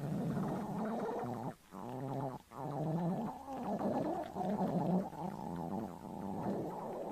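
Stomach growling and gurgling: a hungry belly rumbling in long, wobbling gurgles, with two short breaks a second or two in.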